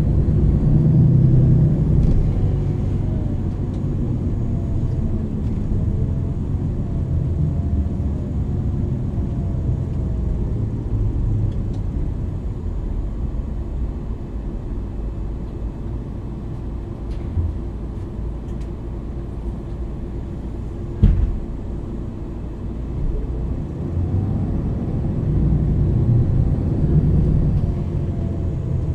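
MAN NL 323 city bus's diesel engine and ZF EcoLife automatic gearbox driving along, the engine note rising and falling as it pulls through the gears at the start and again near the end. A single sharp knock about three-quarters of the way through.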